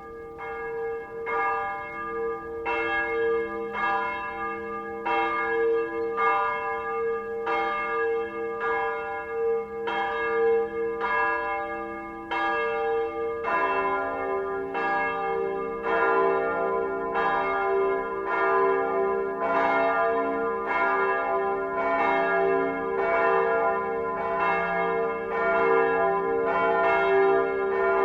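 Large church bell ringing, struck about once a second, each stroke ringing on into the next. About halfway through, a lower-pitched bell joins and the strokes overlap more thickly.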